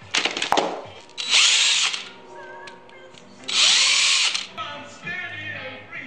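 Power drill boring two pilot holes into a poplar blank through the screw holes of a lathe faceplate: two runs of about a second each, the motor's whine rising as it starts and falling as it stops. A few sharp knocks near the start as the metal faceplate is set down on the wood, with background music under it all.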